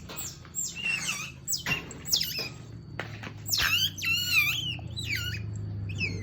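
A small animal giving rapid, high-pitched squeaks and chirps, one after another, most sliding down in pitch and some wavering, over a low steady hum.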